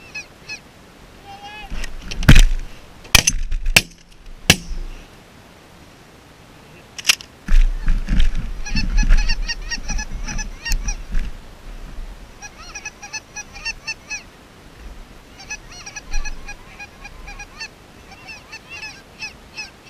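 Geese calling in a chorus of high, repeated honks and yelps in bunches from about eight seconds on. Before that come several sharp, loud cracks in the first five seconds, the loudest just over two seconds in.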